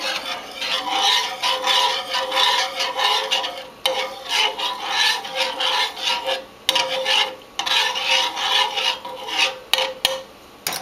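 Small wire whisk beating cocoa powder into warm water in a metal skillet, its wires scraping the pan in rapid, continuous strokes, with a few brief pauses and a lull near the end.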